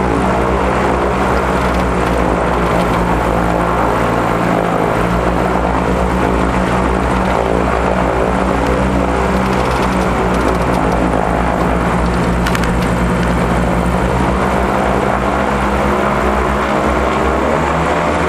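Diamond DA42 twin's propeller engines running steadily while the aircraft taxis, heard from inside the cabin. The engine note wavers slightly near the end.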